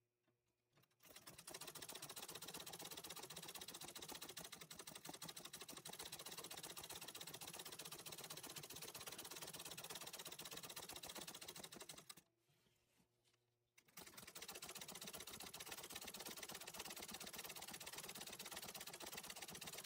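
Antique treadle sewing machine stitching fast, a dense, even run of needle strokes through fabric held in an embroidery hoop. It starts about a second in, stops for under two seconds about two-thirds of the way through, then runs again.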